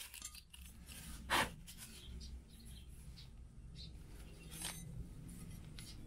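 A few brief scrapes and rubs as a freshly drilled metal U-profile is sanded and handled to deburr its holes. The clearest scrape comes about a second and a half in, over a faint low hum.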